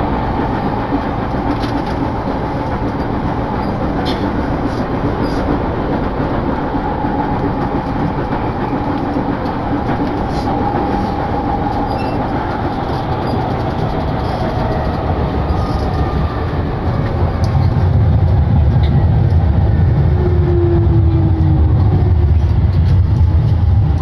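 JR Yamanote Line electric commuter train running, heard from inside the car: a steady rumble and rattle of the wheels on the track. It grows louder and deeper about two-thirds of the way through, and whining tones fall in pitch near the end as the train slows.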